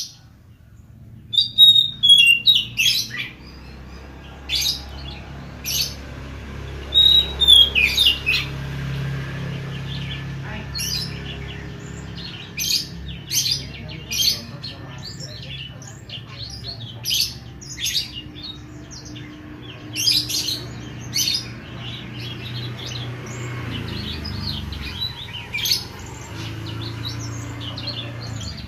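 Oriental magpie-robin (kacer) singing vigorously: phrases of short, sharp whistled notes, some sliding in pitch, repeated with brief pauses between. A low steady hum runs underneath.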